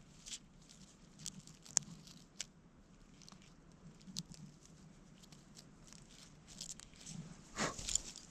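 Faint, scattered sharp clicks and soft crackling rustles of close-up handling, with a louder rustling scrape near the end.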